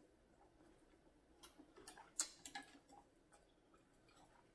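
Faint close-up eating sounds: chewing a bite of country sausage, with soft wet mouth clicks and a quick cluster of sharper clicks near the middle.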